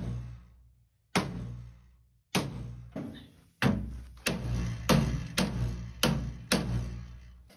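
Hammer blows striking the rusty steel entry step of an old bus from underneath to straighten its bent edge, about eight hits with each metal strike ringing on. The first blows come a second or more apart, then they quicken to about two a second.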